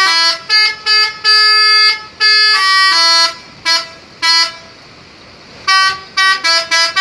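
Telolet multi-tone musical horn of a PO Haryanto bus playing a tune: a run of short and held notes at changing pitches. After a pause of about a second past the middle, it starts a quick string of short notes near the end.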